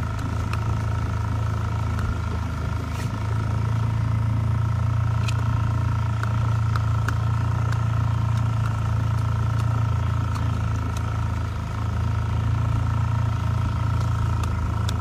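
Small boat's outboard motor running steadily under way: a constant low hum with a steady whine above it.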